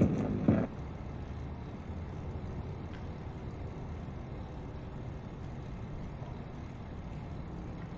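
Loud music cuts off abruptly about half a second in, leaving a steady low rumble of urban outdoor background noise with no distinct events.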